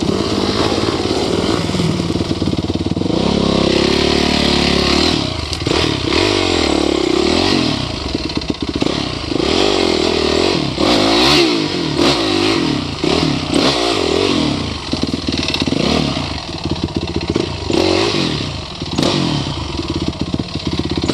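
Dirt bike engines revving hard in repeated bursts, the pitch rising and falling again and again, with clattering knocks among them.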